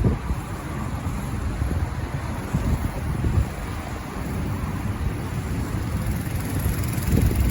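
Honda HRX217 lawn mower's 160 cc engine running steadily while mowing, a rough low rumble.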